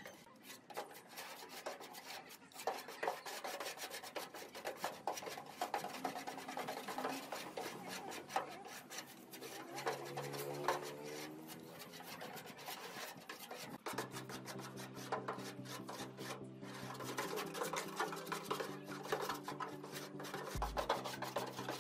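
Hand putty spreaders scraping and smearing body filler across a steel car bonnet in quick, repeated strokes. Background music comes in about two-thirds of the way through.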